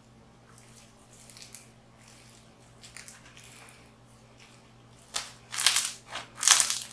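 Crunchy textured slime being squeezed and pressed by hand, with faint crackles at first and then several loud crunching bursts in the last couple of seconds.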